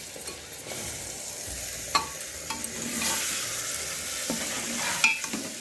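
Chopped tomatoes sizzling in hot oil and ginger-garlic-chilli paste in a pressure cooker, with the sizzle swelling partway through as they are stirred with a ladle. The ladle knocks against the pot a few times.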